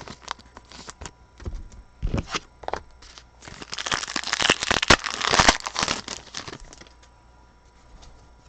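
Plastic-foil trading-card pack wrapper being crinkled and torn open, with a few light taps and clicks of handling first. The crinkling is loudest in the middle and then dies away.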